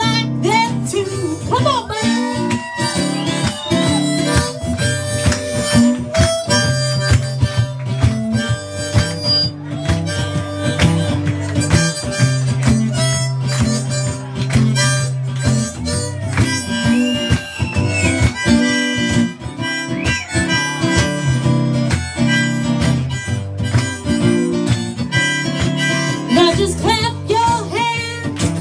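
Live harmonica solo, with acoustic guitar strumming and a cajon beat underneath.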